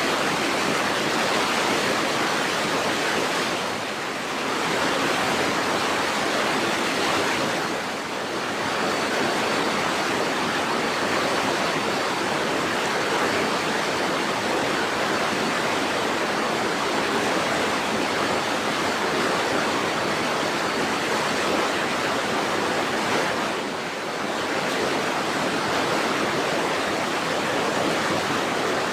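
Steady rushing water, a continuous even roar like a waterfall or fast stream, easing slightly for a moment about four, eight and twenty-four seconds in.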